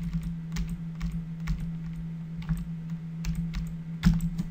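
Computer keyboard keys pressed in an irregular series of short clicks, one louder press about four seconds in, over a steady low hum.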